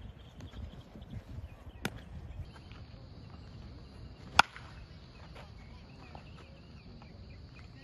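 A baseball bat hitting a pitched ball in batting practice: one sharp, loud crack about four and a half seconds in, with a fainter click about two seconds in. A steady high insect buzz runs underneath from about two and a half seconds on.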